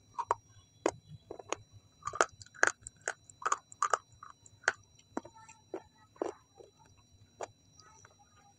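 Close-miked chewing: a run of sharp, wet mouth clicks and bites as food is chewed, dense for the first five seconds and thinning out after that.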